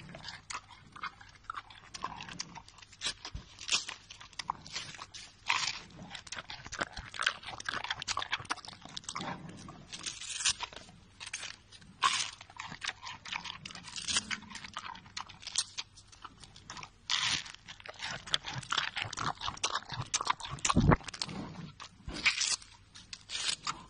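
Giant panda biting and chewing a bamboo shoot up close: irregular sharp crunches and snaps, often several a second, with quieter chewing in between. One dull thump near the end.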